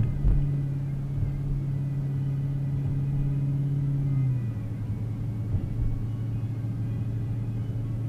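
Car engine and road rumble heard from inside a moving car. The engine's steady hum steps down to a lower pitch about four seconds in, with a couple of low bumps near the start.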